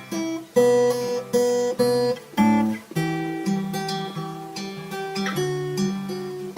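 Instrumental intro of a lo-fi song: a guitar playing chords, struck in quick succession for the first couple of seconds and then held longer, with no deep bass.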